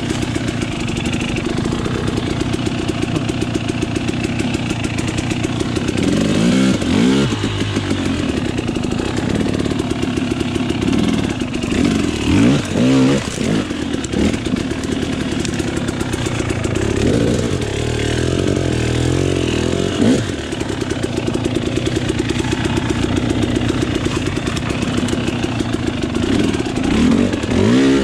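Off-road motorcycle engine running under way on a trail, its revs rising and falling several times as the throttle is worked.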